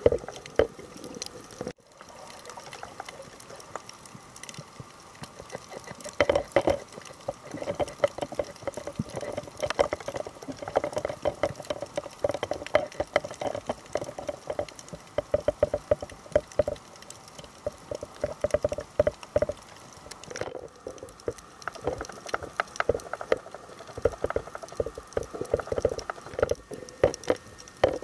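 Water sound recorded underwater: bubbling and sloshing water with a dense crackle of many small clicks. The sound drops out briefly about two seconds in and again about twenty seconds in.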